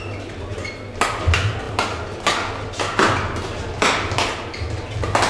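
Badminton rally: sharp racket strikes on the shuttlecock come about once a second, mixed with footfalls and brief shoe squeaks on the court.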